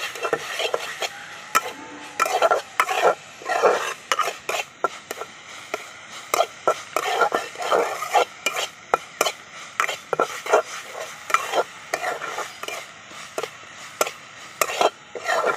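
Flat steel spatula scraping and stirring grated coconut with date-palm jaggery around an aluminium karai, cooking down the sweet coconut filling. Irregular scrapes and metal clinks come about once or twice a second.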